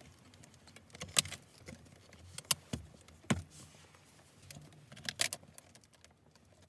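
A few light clicks and taps, spaced irregularly with quiet between them: small handling noises of objects being moved or set down.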